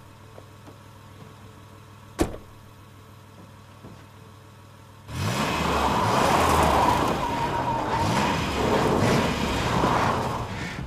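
A car door slams shut about two seconds in. About five seconds in, a Plymouth Valiant's engine starts revving hard, its pitch rising and falling several times, while its rear wheel spins in loose dirt with a squealing whine.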